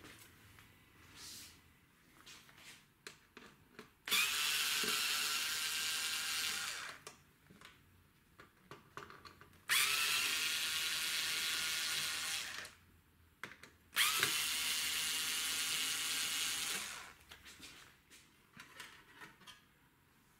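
Cordless electric screwdriver running in three bursts of about three seconds each, backing out the unit's screws, with small clicks and handling noises between the runs.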